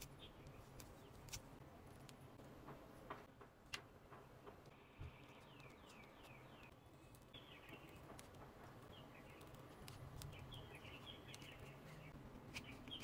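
Faint handling sounds of a small squishy toy in clear plastic film: scattered soft clicks and crinkles, with faint high chirping through the second half.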